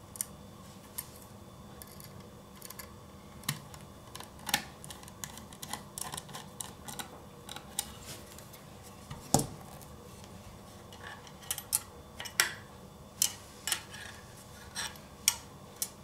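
Scattered small clicks, taps and scrapes of metal and plastic as a 2.5-inch Crucial SSD is handled and fitted into its metal mounting bracket. One louder knock comes about nine seconds in, and a run of sharp clicks near the end.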